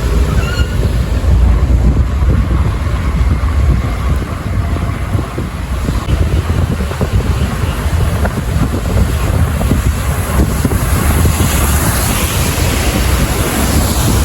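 Wind rumbling and buffeting on the microphone while riding in the open back of a moving pickup truck, with the truck's running and road noise underneath. The rushing hiss grows stronger from about ten seconds in.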